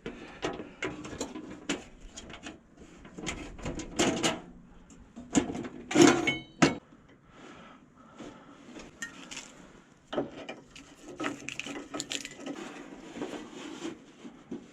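Camp cooking gear being unpacked and handled: irregular knocks and clatter of a metal stove, pan and utensils, with a loud clank and brief metallic ring about six seconds in.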